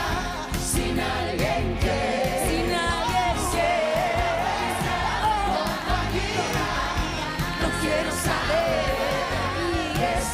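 Live pop band playing with a steady beat while a female lead singer holds and bends long sung notes without clear words. Backing singers sing along.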